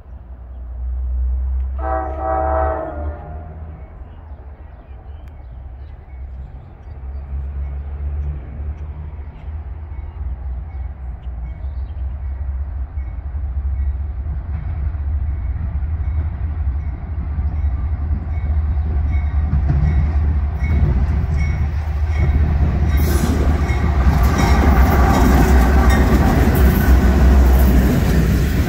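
A loaded coal train led by diesel locomotives approaches. The locomotive horn sounds one short blast about two seconds in. Then the low rumble of the train grows steadily louder, and from about 23 seconds in the loaded coal hoppers pass close by, clattering and clicking over the rail joints.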